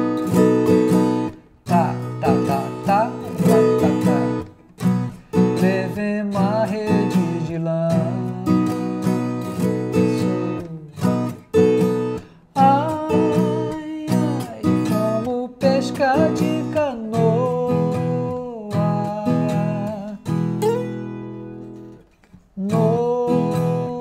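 Viola caipira playing a Cururu: strummed chords with picked melody notes on top, in phrases broken by short pauses.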